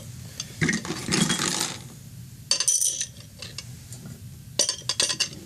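Metal Glock pistol parts clicking and clinking against a glass beaker and the cleaner's stainless tank as they are handled, with a short clatter about a second in and another a little later.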